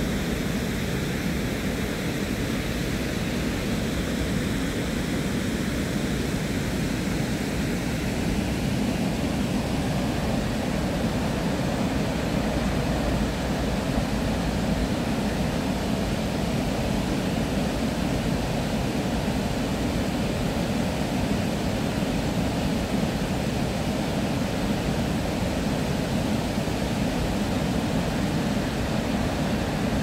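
Steady rushing of river water pouring over a wide stepped weir, an even noise with no break.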